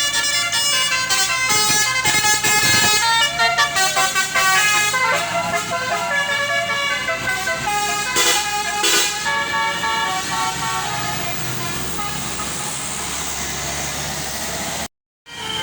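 Tour bus's telolet basuri horn playing a tooting melody of stepping notes, loud, over the bus's engine. The sound breaks off briefly near the end.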